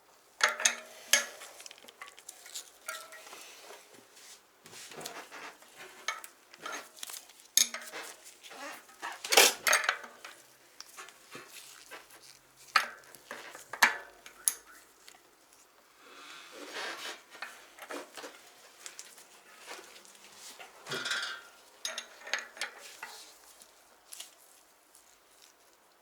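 Small metal bicycle-hub parts and hand tools clinking and clattering irregularly as they are handled, with a scatter of sharp clanks and short rattles.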